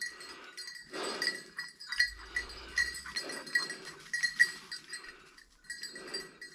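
Bells on running hunting dogs jingling in a quick, uneven rhythm, faint and dropping out briefly now and then.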